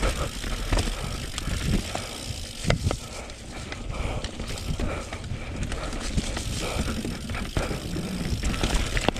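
Mountain bike rolling fast down a rough dirt trail: tyres running over dirt, rocks and roots, with the bike rattling and knocking over the bumps under a steady low rumble.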